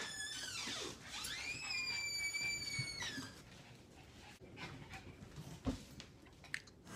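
A dog whining: a short high whine that falls away, then a longer one that rises and holds for about two seconds. A few faint clicks follow.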